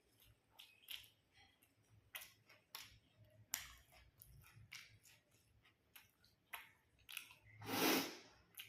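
Close-up eating sounds: chewing with irregular short crunches and mouth clicks, and one louder, longer noisy burst about eight seconds in.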